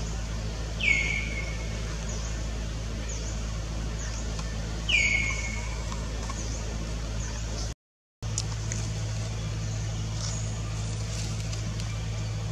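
Two short whistled animal calls about four seconds apart, each sliding down in pitch and then holding briefly. Under them run faint, repeated high chirps and a steady low hum, and the sound cuts out for a moment a little after halfway.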